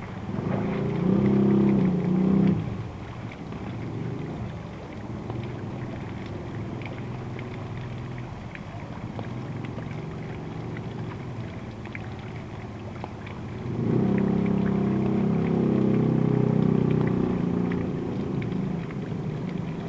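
Vehicle engines running at low speed through shallow floodwater, louder twice, near the start and again for a few seconds past the middle, over a steady wash of rain and water.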